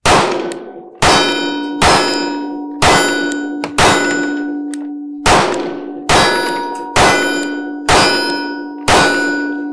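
Ten 9mm pistol shots from a Sig P365XL firing Wolf ammunition, about one a second with a slightly longer pause near the middle, each with a metallic ringing that carries on between shots. The pistol cycles through the string without a stoppage.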